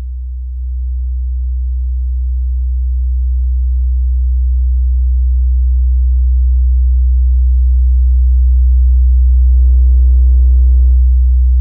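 Low sine-wave test tone through a TL071 op-amp boost circuit, growing steadily louder as the gain is turned up. About nine and a half seconds in it starts to clip and takes on a harsher edge of added overtones for about a second and a half, the sign of the op-amp reaching its clipping point at a little over 10 dB of gain. It turns clean again near the end.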